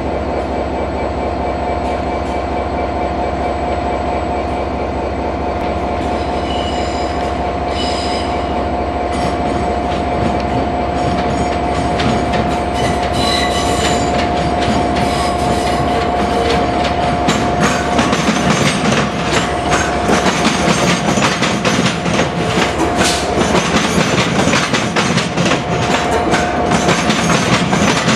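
Electric multiple-unit trains, among them a Southeastern Class 465 Networker, running slowly over station pointwork with a steady high electrical whine. There are short high wheel squeals on the curves, and the wheels clack over the rail joints and points, busier and louder over the last ten seconds as a train passes close by.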